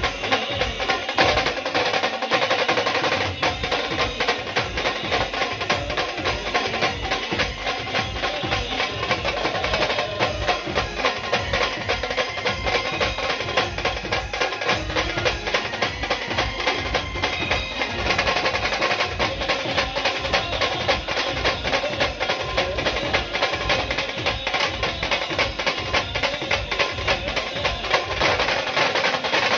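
A band playing live music with fast, dense drumming under a steady melody.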